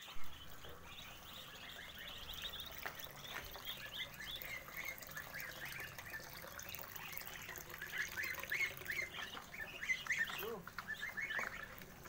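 A group of young goslings and Muscovy ducklings peeping, many short high chirps overlapping continuously. A single lower call cuts in about ten and a half seconds in.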